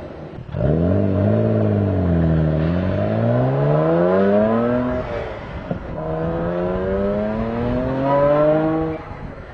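Exhaust note of a Nissan Skyline GT-R (BNR34), whose RB26DETT twin-turbo straight-six breathes through an HKS Super Turbo Muffler, a straight-through design with no restriction. The engine revs up and falls back, then makes a longer rise; after a break it climbs slowly and steadily, and drops away near the end.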